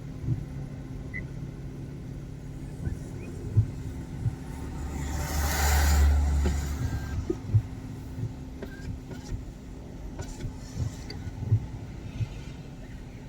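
Car driving on wet roads in the rain, heard from inside the cabin: a steady low engine and road rumble with scattered light knocks. A louder rushing swell builds and fades about five to seven seconds in.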